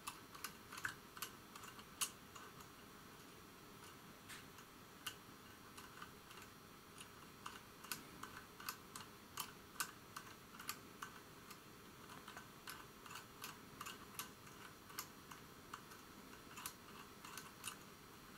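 Faint, irregular clicking from the barometric-setting knob and counter mechanism of a vintage Smiths sensitive altimeter as the knob is turned by hand, the altitude counter drums rolling toward zero.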